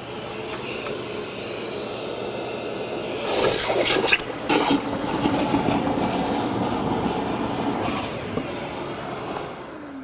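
DEWALT Stealth Sonic 12-gallon wet/dry shop vacuum running, its hose sucking water out of a bucket. Loud irregular slurping comes about three to five seconds in as the last of the water and air are pulled up. The motor winds down with a falling whine near the end.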